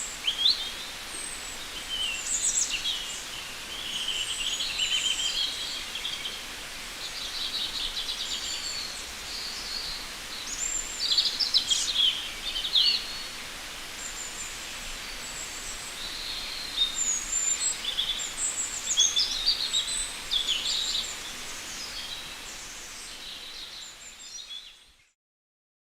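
Forest birds singing and calling, many short chirps and trills over a steady hiss of ambient forest noise; it fades out near the end.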